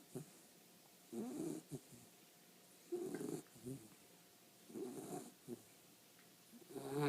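A 12-week-old pet snoring in its sleep, about four snores in a regular rhythm roughly every two seconds, each louder breath followed by a shorter, softer one.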